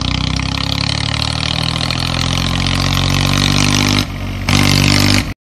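Tractor engine running, its pitch rising slowly. The sound changes abruptly about four seconds in and cuts off suddenly near the end.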